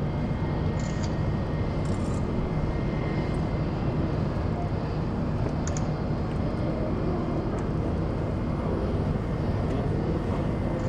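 Airbus A320 airliner taxiing at low power, its jet engines giving a steady rumble with a faint whine held on one pitch.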